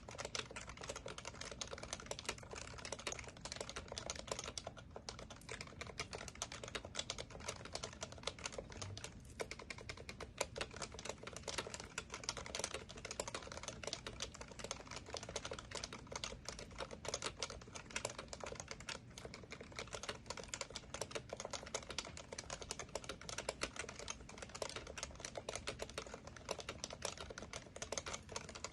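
Fast, continuous typing on a Happy Hacking Keyboard Professional Classic with tactile Topre switches: a dense run of key clacks, with brief pauses about five and nine seconds in.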